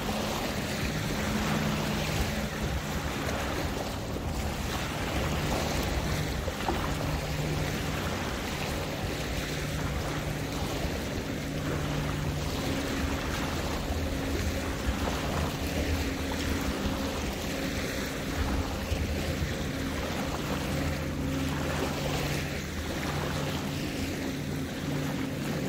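Motor of a pontoon boat running steadily with a low hum, under water washing and splashing.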